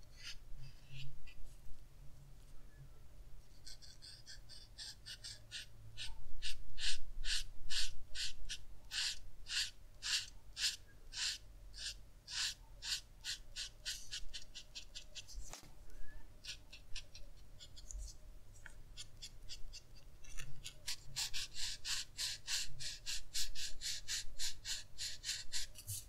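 Felt marker tip of a Winsor & Newton Brushmarker scratching across paper in quick repeated strokes, about two or three a second, in two runs with a lull in between.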